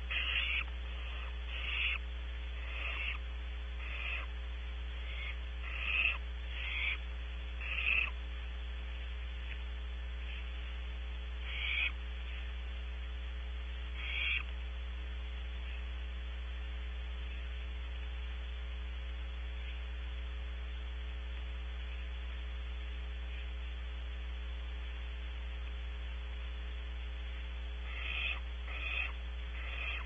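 Barn owl owlets giving short, hissing calls in quick succession, about a dozen over the first fifteen seconds, then a long pause before several more near the end. A steady low electrical hum from the nest camera runs underneath.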